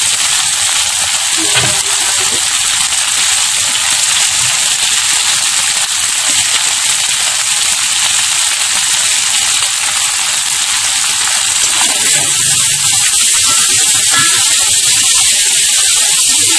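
Tofu frying in hot oil in a wok: a steady sizzle as a metal spatula stirs the pieces. The sizzle grows a little louder about twelve seconds in.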